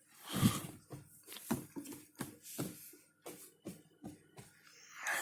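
Jeans being pushed into the drum of a front-loading washing machine: irregular soft rustles and thumps of fabric, about ten in five seconds.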